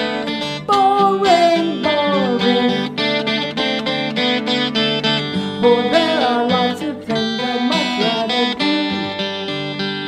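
Music: strummed acoustic guitar chords, with a melody line above that slides down in pitch a few times.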